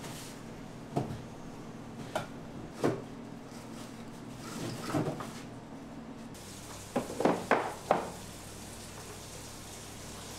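Light knocks and crinkles of food and tableware being handled at the table, with a steady room hum. A few single clicks come about a second apart, then a quick run of three or four louder clicks a little after seven seconds.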